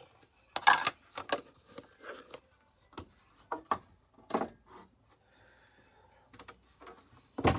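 Irregular light knocks and clicks of household objects being handled, with one louder knock near the end.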